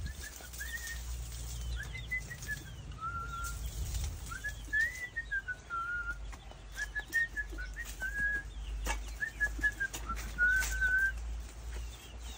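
A person whistling a wandering tune: a single clear tone in short phrases with held notes, stepping up and down in pitch.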